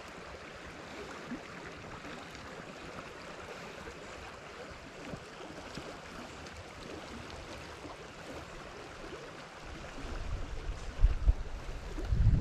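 Steady rush of river current flowing past. Near the end, loud irregular low rumbling buffets the microphone.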